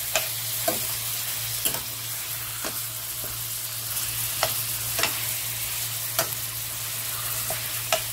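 Ground beef and chopped onion sizzling in oil in a stainless steel frying pan, stirred with a metal spoon that clinks and scrapes against the pan at irregular moments, about once a second.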